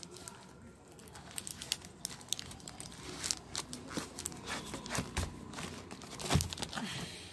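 Corrugated cardboard packing rustling and scraping as sediment filter cartridges are pulled out of their box, with plastic wrapping crinkling and irregular clicks. A couple of soft knocks stand out, the loudest about six seconds in.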